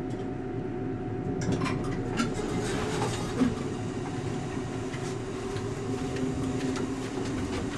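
Elevator car in motion: a steady mechanical hum with a faint steady tone, and light clicks and rattles that begin about a second and a half in.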